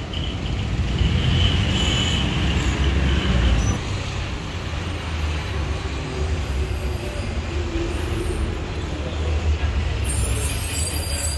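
Road traffic: a steady low rumble of passing vehicles, with some high-pitched noise near the end.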